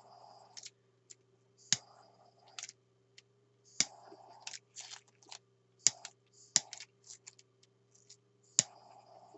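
Plastic mixing cup and craft tools being handled with gloved hands during resin casting: about five sharp plastic clicks roughly two seconds apart, with short scrapes and rustles between them.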